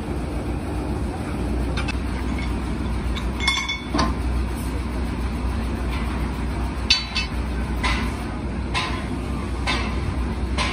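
Several sharp metal clinks with a brief ring as the steel cylinder rod is shifted and turned on the steel blocks under the hydraulic press, over a steady low machine hum.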